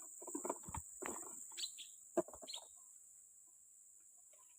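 Short bird squawks and calls with a sharp knock about two seconds in, over a steady high insect drone.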